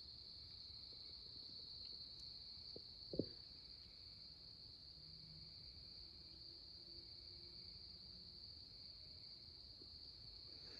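Faint, steady high trill of crickets in the night woods, with a single soft knock about three seconds in.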